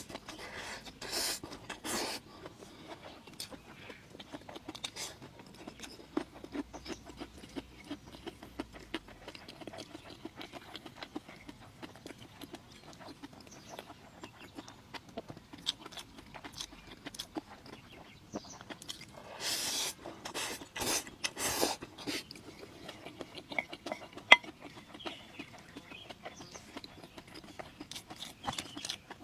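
Someone eating fried noodles: soft, steady chewing and mouth smacks, with a few louder bursts of sound about 19 to 22 seconds in.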